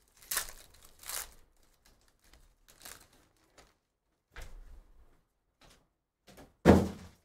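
Foil trading-card pack wrapper crinkling and tearing as it is ripped open, in two short bursts about a second apart near the start, followed by quieter rustling as the cards are handled. A low thump comes midway, and a louder thump near the end.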